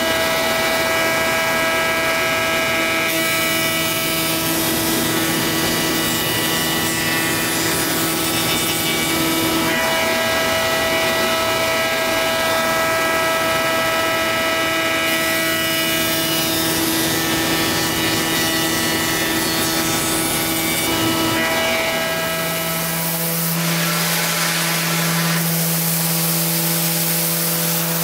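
Spindle moulder (wood shaper) running as an ash end-grain cutting board is fed by hand along its fence past the cutter. It makes a steady machine sound whose tone changes several times. About five seconds before the end it gives way to a different steady hum, that of a random orbital sander on the board.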